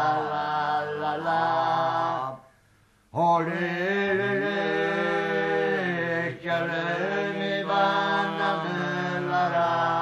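Resian folk song sung in a chant-like style: a held low part under a higher, wavering melody line. It breaks off for under a second about two seconds in, then the next phrase begins.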